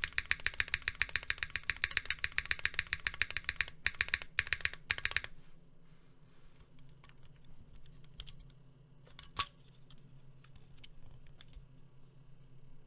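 Fast typing on a Cannonkeys Bakeneko60 mechanical keyboard with a carbon-fibre half plate, no foam, linear switches and GMK Norse keycaps. It stops about five seconds in and is followed by a few scattered single clicks, one of them louder.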